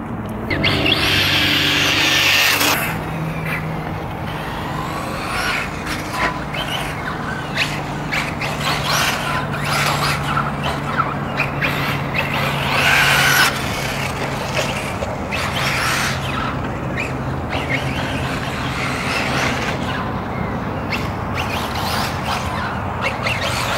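Kyosho MP9e electric 1/8-scale buggy running laps on a dirt track, its motor and tyres coming and going and growing louder several times as it passes, over a steady low hum.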